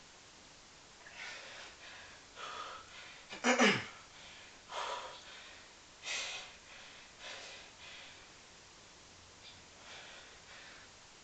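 A man breathing hard during a long set of pistol squats: sharp puffs of breath about once every second or so, one of them louder and voiced, sliding down in pitch.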